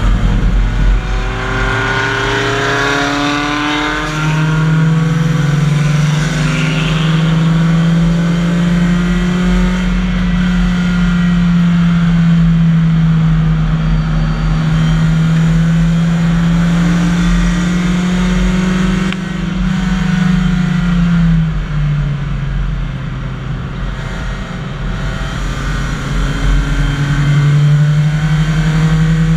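BMW 318i race car's four-cylinder engine heard from inside the cabin, running hard at high revs on track, easing off about 21 seconds in and pulling again near the end. In the first few seconds another race car's engine is heard alongside.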